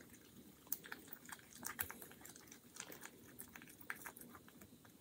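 Faint, irregular wet clicks and scrapes of thick chalk paste being stirred in a small jar to thin it out.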